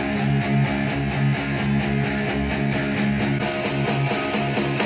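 Guitar-driven rock music with a steady beat, played through a pair of Tannoy Gold 5 studio monitors and picked up by microphones in front of them; near the end the playback switches to a pair of Yamaha HS5 monitors.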